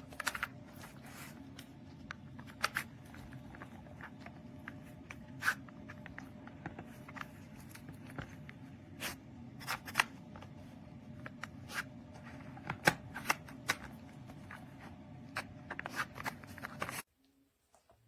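Irregular clicks, clatters and rustling over a steady low hum, stopping abruptly near the end.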